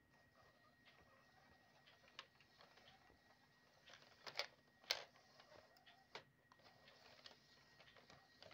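Near silence with faint scattered plastic clicks from a toy tram's wheels on Lego rail pieces, and two sharper clicks a little past halfway.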